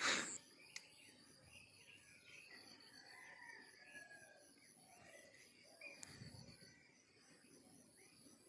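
Insects trilling steadily in high, even pulses, with a short loud rustling burst right at the start.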